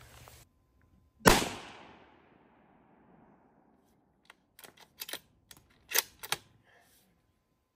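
A single shot from a scoped 7.62 Savage bolt-action rifle about a second in: a sharp crack that dies away over about a second. A few seconds later comes a quick run of sharp metallic clicks and clacks, the bolt being worked to eject the case and chamber the next round.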